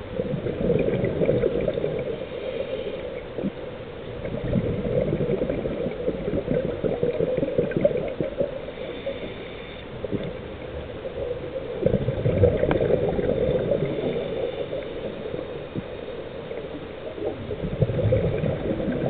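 Scuba regulator breathing heard underwater: exhaled bubbles gurgling in long surges that rise and fall every few seconds, with a fainter hiss of inhalation between them.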